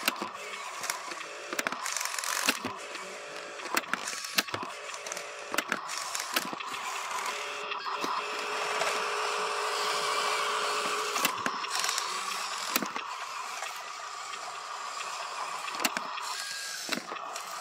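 Electric motor of a toy-scale RC dump truck whining steadily, louder through the middle, with many sharp clicks and knocks scattered through.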